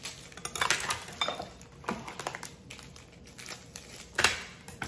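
Butterfinger candy-bar wrapper crinkling as it is opened, among light clinks of a metal kitchen utensil, with one sharper clack about four seconds in.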